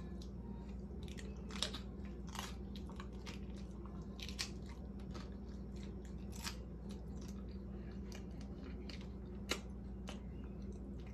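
A person chewing tacos close to the microphone, with irregular sharp mouth clicks, a few louder than the rest, over a steady low hum.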